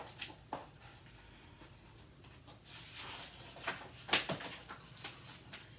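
Light rustle of paper and a few scattered clicks and knocks as a picture book is handled and a page turned. The sharpest knock comes just after four seconds in.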